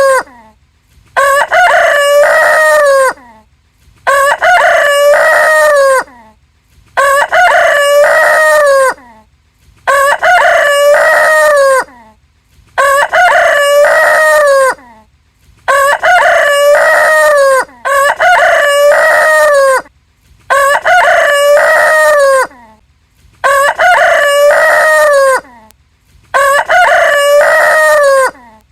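A rooster crowing cock-a-doodle-doo over and over, each crow about two seconds long and repeated about every three seconds, ten times, every crow sounding the same.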